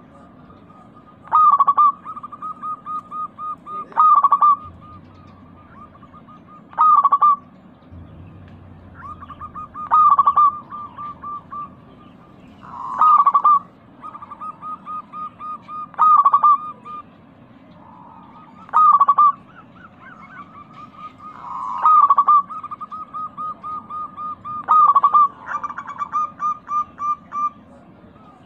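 Zebra doves (perkutut) cooing. About every three seconds comes a loud note followed by a quick run of softer, even cooing pulses, repeated nine times.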